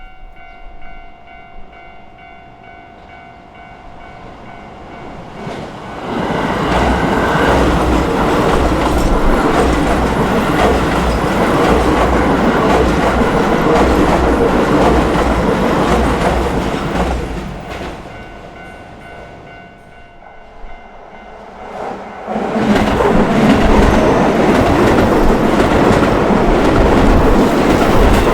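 Japanese level crossing's warning bell ringing, then a Keio Line electric train running over the crossing with a loud rail rumble and clatter from about six seconds in until it fades near seventeen seconds. A second train starts passing about twenty-two seconds in.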